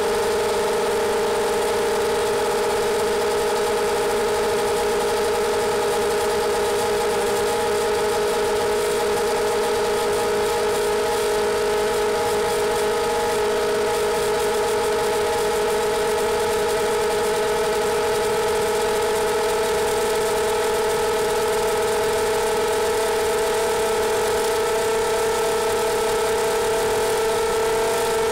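Quadcopter's brushless motors and propellers holding a steady, even whine of several constant tones over a hiss, with no change in pitch or loudness.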